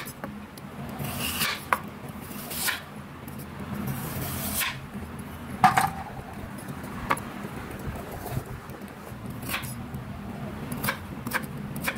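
Kitchen knife cutting through raw taro on a wooden chopping board: irregular knocks of the blade on the board with scraping strokes between them, the loudest knock about halfway through.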